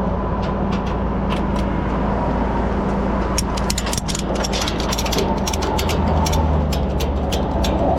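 Ratchet tie-down strap being cranked tight: a run of sharp ratchet clicks, densest around the middle, over a tow truck's engine running steadily.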